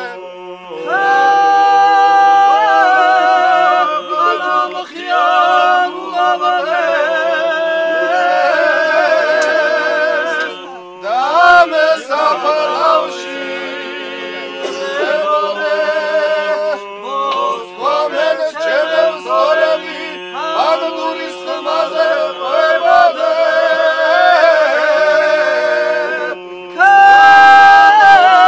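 Several men singing Georgian polyphony a cappella, the upper voices moving in close harmony over a steady low held drone. The singing comes in about a second in and pauses briefly for breaths between phrases.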